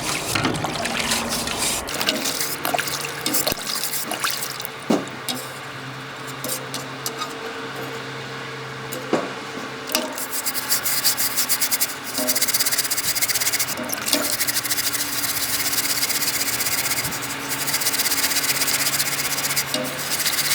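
A stiff round scrubbing brush is rubbing a rusty grease-gun oiler body with cleaning powder and water in rapid back-and-forth strokes. Water runs under a steady low hum.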